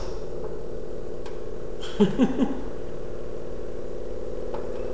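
Homemade NASA-design diaphragm Stirling engine running on the heat of a hot plate, its diaphragm and displacer shaking in a steady, rapid buzzing hum.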